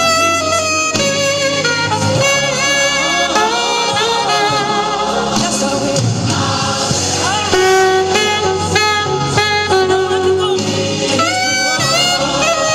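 Alto saxophone playing a melody over a backing track, with held notes and slides between them.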